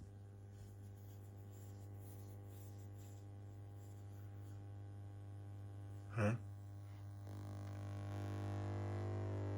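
Naim NAC152/NAP200 clone amplifier humming after switch-on: a steady low mains hum with a stack of overtones that slowly grows louder, the higher overtones swelling after about seven seconds. The hum is a fault of this amplifier. A brief, louder blip sounds about six seconds in.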